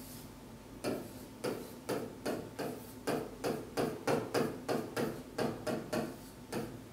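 Marker pen writing letters on a board: a quick run of short, sharp strokes and taps, about three a second, starting about a second in and stopping near the end.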